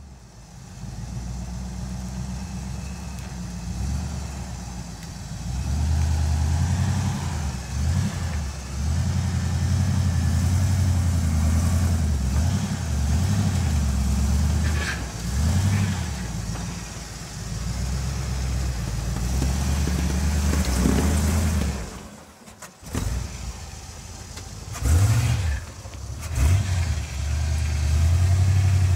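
Jeep CJ-5's engine running under load as it crawls over boulders, the revs rising and falling unevenly with the throttle. About three-quarters of the way through it drops back briefly, then surges in a few sharp revs.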